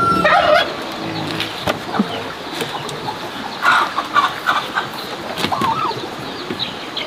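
Farmyard fowl calling: a burst of calls just after the start, then a few short clucks and a rising-and-falling call around the middle, with scattered light knocks.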